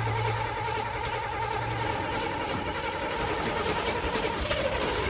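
Chevrolet Camaro Z28's V8 being cranked on its starter motor, a fast even churning with a steady whine that does not catch: the car won't start. The whine drops slightly in pitch near the end.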